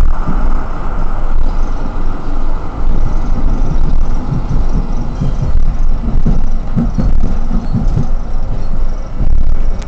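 N8C articulated tram running along its track, heard from on board: a steady low rumble of wheels on rail and drive, with irregular low thumps from the track.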